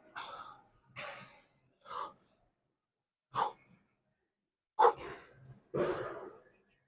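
A person's forceful, breathy exhalations, six in all. They come about a second apart at first, and the gaps lengthen after about two seconds. This is hard breathing from effort during a weight-training set.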